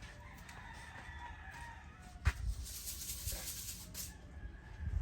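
A rooster crowing. A little over two seconds in comes a sharp knock, followed by about two seconds of high hissing rattle.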